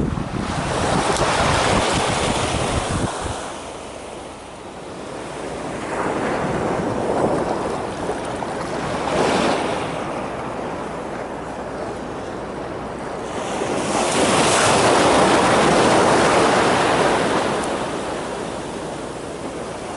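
Waves surging and breaking on the shore, swelling and fading in slow surges every several seconds, with wind buffeting the microphone in the first few seconds.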